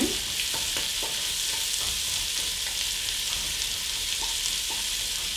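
Diced onion sizzling in hot bacon fat in an enamelled cast-iron pot, a steady hiss, while a wooden spoon stirs and scrapes through it a few times.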